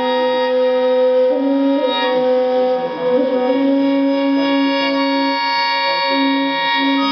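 Live instrumental music: a slow melody of long held notes that step from pitch to pitch over a steady sustained drone.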